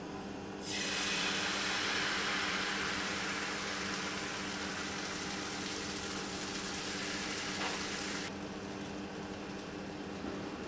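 Crepe batter sizzling as it is ladled into a hot buttered nonstick frying pan. The hiss starts about a second in, holds steady, and cuts off abruptly near the end, leaving a steady low hum.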